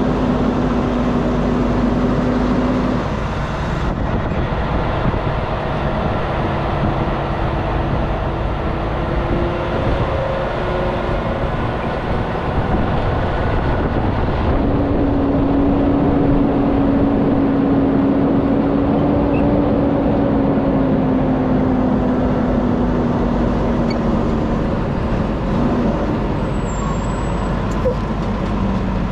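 Semi-truck's diesel engine running at low speed while the rig is manoeuvred toward a loading dock: a steady drone with a low hum that fades out about three seconds in and returns for several seconds in the middle.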